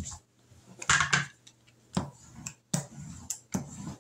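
A plastic rolling pin and a pizza cutter being handled on a countertop: one louder clatter about a second in, then several sharp clicks and knocks.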